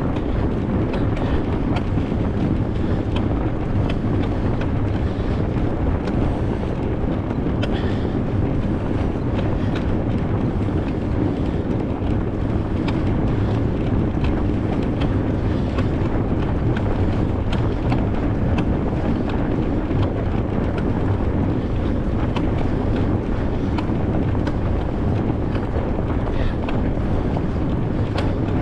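Steady low rumble of wind buffeting an action camera's microphone while a fatbike rolls through snow, with scattered faint clicks and crunches.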